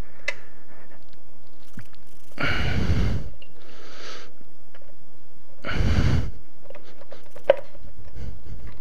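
A person breathing hard with effort close to the microphone: two heavy exhalations about three seconds apart, a quieter breath between them, and a light click near the end, while the magnet-held stator cover is pulled loose.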